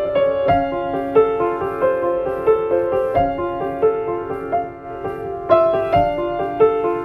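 Gentle instrumental background music led by piano, a flowing line of notes changing about every half second; it thins briefly a little past the middle, then grows fuller about five and a half seconds in.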